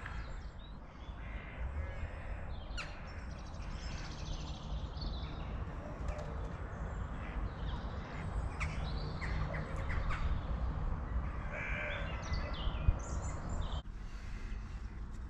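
Birds calling outdoors: scattered short, harsh calls throughout, over a steady low rumble of wind on the microphone.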